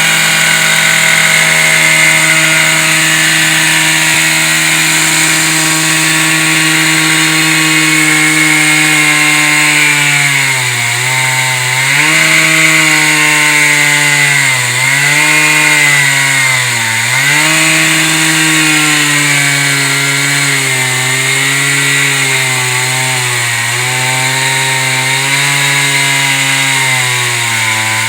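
Concrete-cutting chainsaw running at steady high revs, then cutting concrete and stone from about ten seconds in, its pitch dipping again and again as the cut loads it down.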